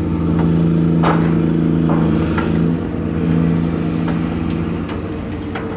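Diesel engine of a gut ship (grab-crane aggregate carrier) running steadily during cargo handling, pulling harder about half a second in and easing off near the middle. Scattered sharp metallic knocks sound over it.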